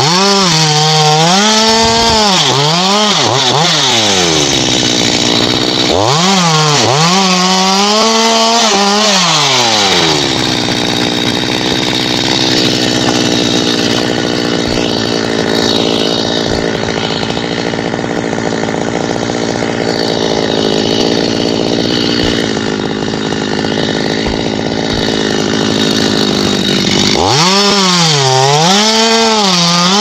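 Stihl two-stroke chainsaw cutting into a coconut palm trunk, its engine pitch wavering up and down under load twice in the first ten seconds. It then runs at a steady, even pitch for a long stretch, and near the end bites into the wood again with the same wavering pitch.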